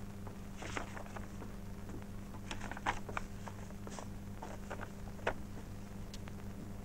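Faint rustling and scattered small clicks of a sheet of paper being handled, over a steady low hum.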